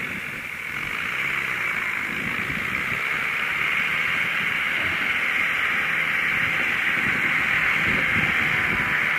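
Diesel engines of rice combine harvesters and tractors running steadily under load as they work through mud: a steady, noisy drone that grows a little louder over the first second or two.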